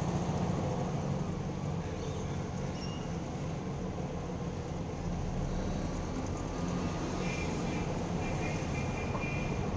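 Car engine running steadily at low road speed, a constant low drone with road noise, heard from inside the car.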